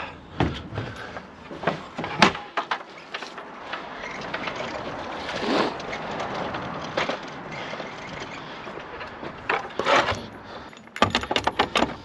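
Metal appliance dolly being handled: scattered clanks, knocks and rattles of its frame and fittings, with a denser run of knocks near the end as its wheel attachment is worked on by hand.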